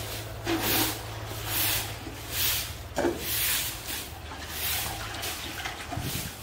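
Long grass broom sweeping a packed-earth yard: swishing strokes, about one a second.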